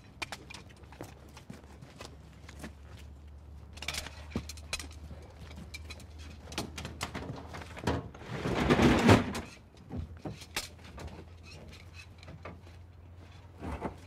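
Firefighters running out hoses and raising ladders: scattered clanks and knocks of handled equipment over a low steady hum. Just past the middle comes a loud rushing noise lasting about a second and a half, the loudest sound here.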